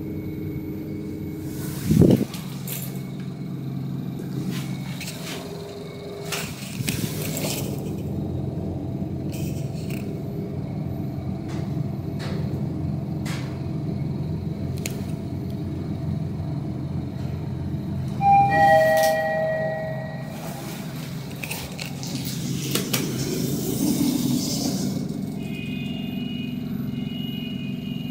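Inside a Mitsubishi NexWay-S passenger elevator car during a ride: a steady low hum of the travelling car, with a thump about two seconds in. About eighteen seconds in, an arrival chime sounds as two falling tones, and a few seconds later comes a rushing swell as the doors slide open.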